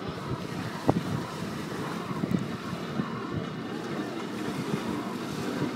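Wind buffeting the microphone with an irregular low rumble, and a sharp knock about a second in.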